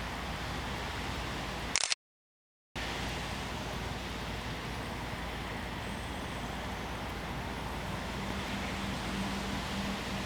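Steady outdoor background noise, a low rumble with hiss like distant traffic. About two seconds in it breaks with a short crackle and under a second of dead silence, where the recording cuts, then carries on unchanged; a faint steady hum comes in near the end.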